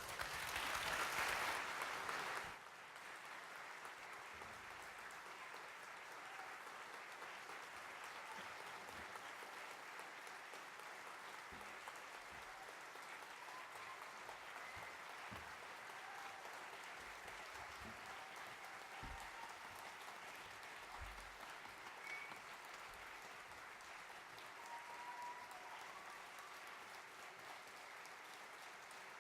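Audience applauding at the end of a stage performance, fuller for the first couple of seconds and then a steady, quieter clapping.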